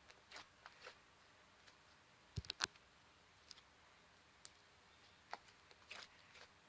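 Slime being worked by hand, making sparse small clicks and pops, with a quick cluster of sharper clicks about two and a half seconds in.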